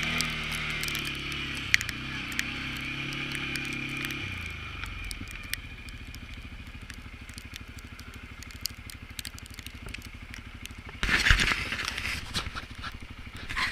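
CFMoto CForce ATV engine running, dropping in pitch about four seconds in and settling to a steady idle. A loud rustling, crackling noise comes in near the end.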